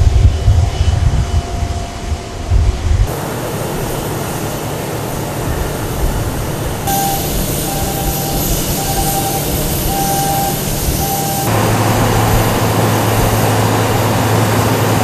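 Airport apron noise in several cut-together stretches. It opens with gusty wind buffeting the microphone, then gives way to a steady noise of jet aircraft and ground equipment. In the middle a short beep repeats about once a second, and near the end a steady low hum comes in.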